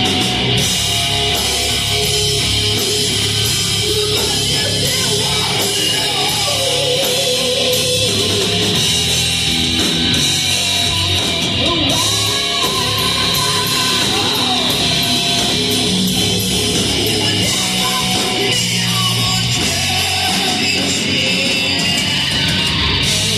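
Hard rock band playing live and loud: distorted electric guitar with bending notes over bass and drums.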